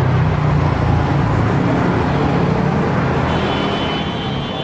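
A motor vehicle's engine running, heard as a steady low rumble that is loudest near the start and slowly fades.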